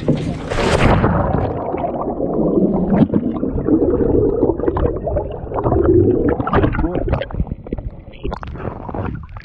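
A person falling from a boat's bow into a lake with the camera on him: a sudden splash about half a second in, then several seconds of muffled underwater gurgling and bubbling with the high sounds cut off. Sharper splashing comes back near the end as the camera breaks the surface beside the aluminium hull.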